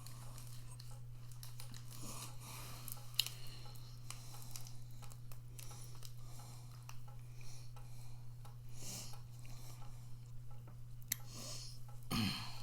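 A person chewing a mouthful of microwave fried rice, with scattered light clicks and one sharp click about three seconds in, over a steady low hum.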